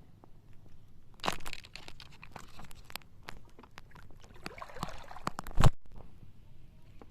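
Irregular splashing and crunching as someone moves through shallow seawater over rock or coral, with one sharp, loud knock a little past halfway.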